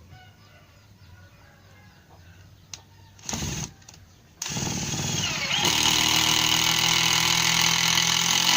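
Makita TD110D 12 V cordless impact driver driving a 4 cm screw into wood without a pilot hole. A short trigger blip about three seconds in, then the motor runs with a rising whine, and about a second later it gets louder and steadier as the impact mechanism hammers the screw home.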